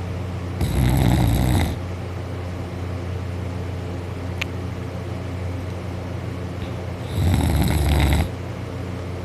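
A sleeping person snoring loudly: two long, rough snores about six seconds apart, each lasting about a second, over a steady low hum.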